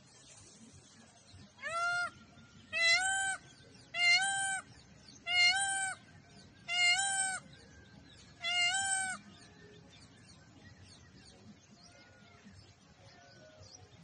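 Indian peafowl (peacock) giving a series of six loud, high calls about 1.3 seconds apart, each call rising briefly and then held on one pitch. Two much fainter calls follow near the end.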